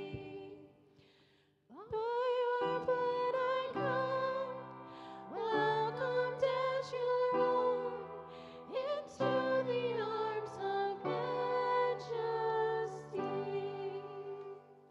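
Woman singing a slow worship song over piano chords, with held, wavering notes. The music drops to a hush for a moment at the start, and her voice comes back in about two seconds in; it fades out near the end.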